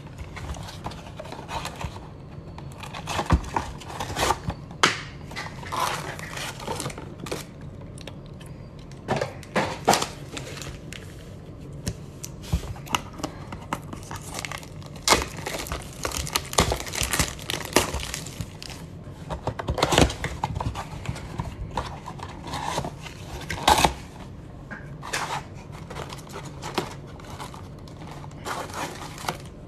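Cardboard trading-card blaster box being torn open and handled, with irregular tearing, crinkling and sharp crackles as the flaps are ripped and the foil-wrapped card packs are worked out.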